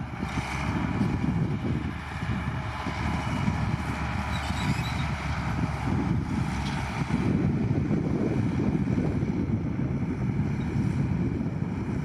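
Heavy diesel earthmoving machinery running steadily, with wind buffeting the microphone in a gusty low rumble.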